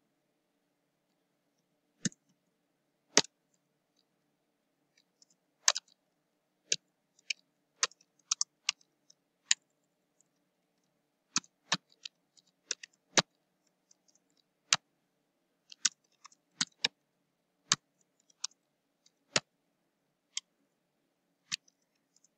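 Computer keyboard keystrokes: sharp single clicks at an uneven pace, roughly one or two a second, with silence between them.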